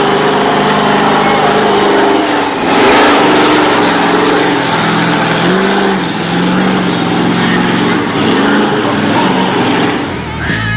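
BIGFOOT #6 monster truck engine running and revving, its pitch rising and falling several times, with a louder burst of revving about three seconds in.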